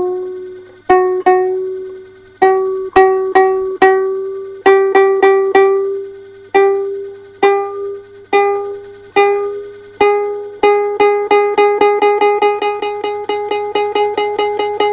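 One string of a three-string kentrung, a small Indonesian ukulele, plucked again and again while it is tuned up to G#. The same single note sounds each time, rising slightly in pitch. The plucks come about a second apart at first, then quickly, about five a second, for the last few seconds.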